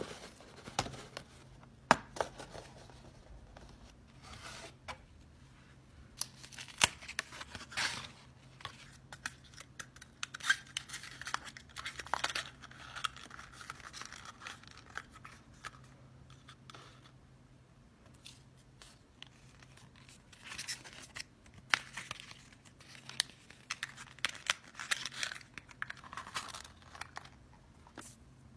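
Hands opening paper and cardboard packaging of a Pikachu box: crinkling, a paper strip or sticker being torn and peeled, with sharp clicks and taps of cardboard now and then.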